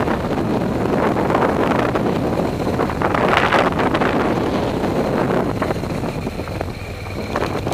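Motorcycle engine running under heavy wind buffeting on the helmet camera's microphone, easing off a little after about six seconds as the bike slows and turns onto gravel.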